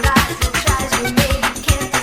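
Dance music with a steady beat of about four kick-drum hits a second.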